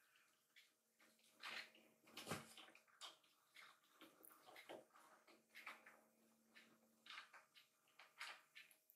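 Near silence with faint, irregular soft rustles and wet-sounding ticks from kittens shifting on a fabric-covered lap; the loudest is a single soft rustle about two seconds in.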